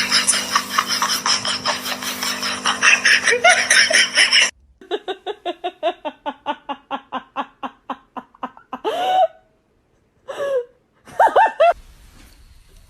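People laughing. After an abrupt cut about four and a half seconds in, one person laughs in steady pitched bursts of about four a second. Near the end come a few short, gliding vocal calls.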